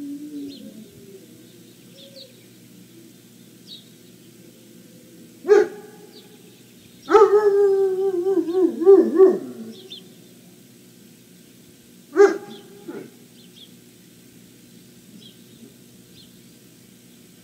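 A puppy calling out: a short high call about five seconds in, then a longer call with a wavering pitch lasting about two seconds, then another short call near the twelve-second mark.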